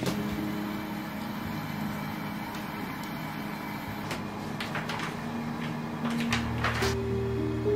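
Soft background music with held, sustained notes, thinning out for a few seconds before a deeper bass part comes back about six seconds in. A few light clicks are heard around four to five seconds in and again near seven seconds.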